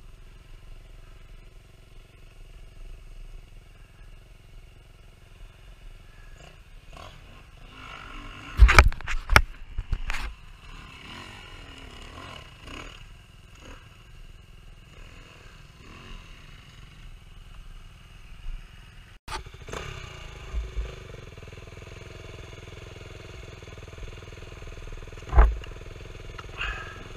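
Enduro dirt bike engines running and revving off and on. There are several loud thumps about nine seconds in and another one late on.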